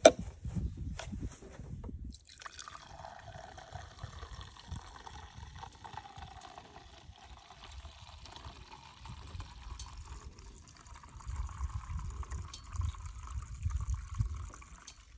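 Diesel fuel that served as crankcase oil draining from a small mower engine in a steady stream into a plastic measuring jug, the note of the pour slowly rising as the jug fills. A sharp knock comes right at the start, and the stream begins about two seconds in.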